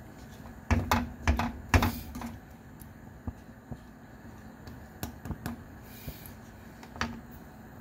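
Wooden spatula knocking and clicking against the pan while stirring simmering chicken nuggets. A quick run of knocks comes about a second in, followed by a few scattered clicks.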